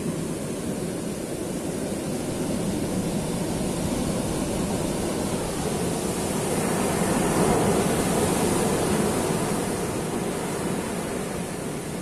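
Ocean surf breaking and washing up a sand beach: a steady rushing wash that swells to its loudest about two-thirds of the way through as a wave breaks, then eases.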